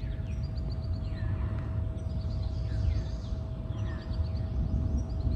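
Birds calling outdoors, a busy run of short chirps that fall in pitch, over a low steady rumble and a faint steady hum.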